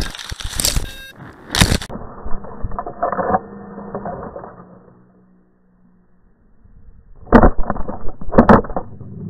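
Handling noise on a small action camera's built-in microphone: knocks, scrapes and rustling as a hand grabs it and it tumbles among leaves and grass. Loud knocks come at the start and about a second and a half in, it goes nearly quiet for a moment around the middle, then two more loud knocks near the end.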